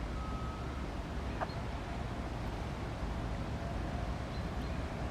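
Steady low rumble of distant traffic, with one short chirp falling in pitch about a second and a half in.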